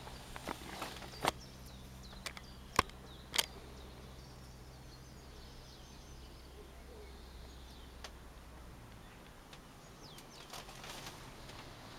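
Distant light propeller aircraft droning steadily, fading out about two-thirds of the way through. A handful of sharp clicks stand out in the first few seconds, with faint bird chirps.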